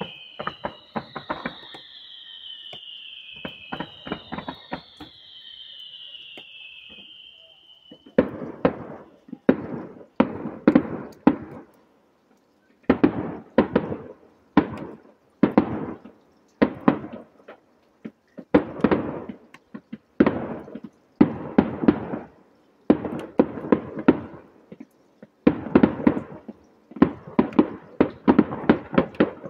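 Firework display: for the first few seconds three high whistles fall in pitch, about two seconds apart, among scattered bangs. From about eight seconds in, clusters of quick bangs and crackles go off roughly once a second.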